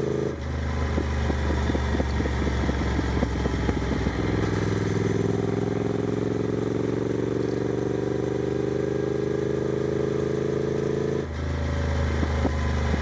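Triumph Scrambler 900's parallel-twin engine heard through its aftermarket exhaust while riding. It burbles and crackles off the throttle, then from about four seconds in pulls steadily with the pitch slowly rising. Near the end it drops suddenly back to the crackling burble.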